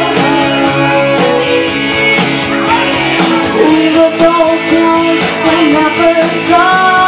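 A girl singing long held notes into a microphone over a pop backing track with guitar, heard through the stage sound system at the close of the song.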